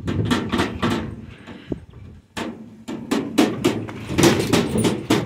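Small steel utility trailer being pushed by hand, its box rattling and clanking with a run of irregular sharp metal knocks, thickest in the second half.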